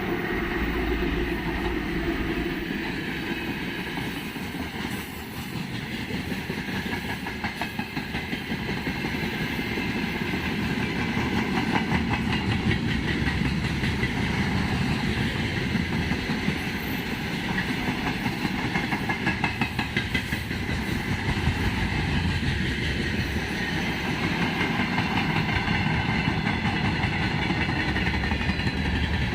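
A train running along the track: a steady rumble with a fast, continuous clatter of wheels on the rails.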